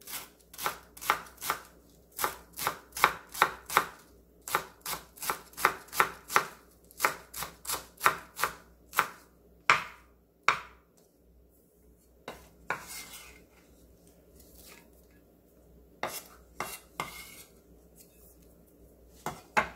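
Kitchen knife chopping wild chives on a wooden cutting board: quick, even knocks about three a second, slowing after about nine seconds to a few scattered taps and a brief scrape.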